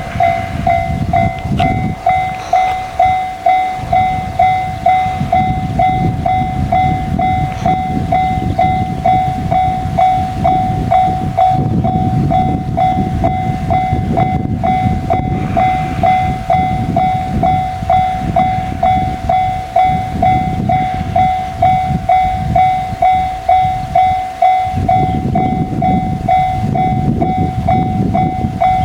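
Japanese level-crossing alarm in the JR standard tone, an electronic bell ringing at an even repeating beat. Under it a train rumbles through the crossing, the low running and wheel noise swelling and dipping.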